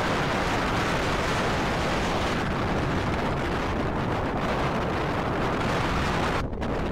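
Wind buffeting the microphone, a loud steady rushing that masks everything else and thins out near the end.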